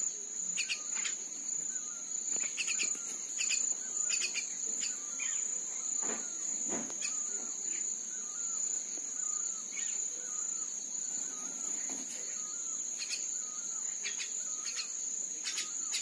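Steady high-pitched insect drone, like crickets, runs throughout. Short high chirps repeat irregularly, roughly once or twice a second.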